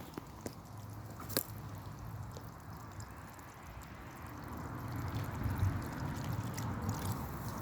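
Grasshopper stridulating, rubbing its legs against its wings: a dry, rasping noise that grows louder about four and a half seconds in, with a few sharp clicks.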